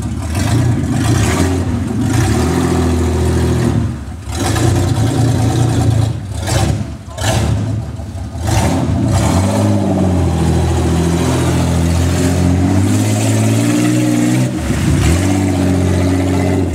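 Ford Bronco II engine revving hard as the truck churns through mud. Its pitch rises and falls repeatedly, dropping off the throttle briefly about four seconds in and again a couple of times around six to eight seconds.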